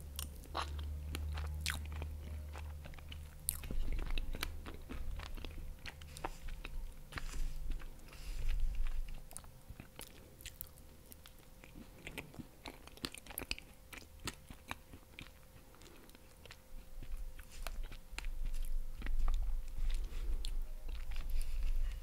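Close-miked ASMR chewing of soft berry-topped cheesecake: wet mouth smacks and sharp little clicks, coming in denser spells with quieter chewing between.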